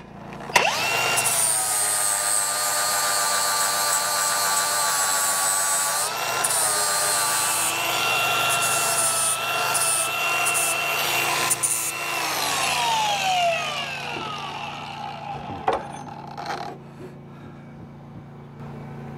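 Angle grinder spinning up and grinding the edges of a plasma-cut steel weld plate to clean them up, its steady whine dipping briefly partway through, then winding down with a falling pitch. A single knock follows as it is set down.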